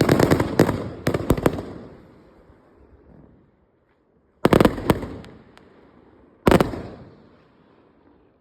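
Fireworks exploding: a rapid cluster of sharp bangs in the first second and a half, then two single loud bangs about two seconds apart, each followed by a rumbling echo that dies away.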